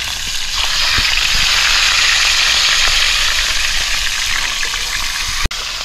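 Pieces of wild coot meat sizzling steadily as they fry in a pan over an open fire, the sizzle growing louder about half a second in. A sharp click with a brief gap in the sound near the end.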